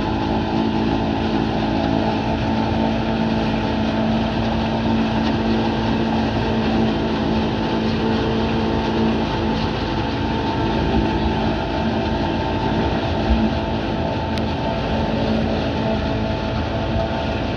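Engine of grass-harvesting farm machinery running steadily, a constant mechanical drone with a steady hum.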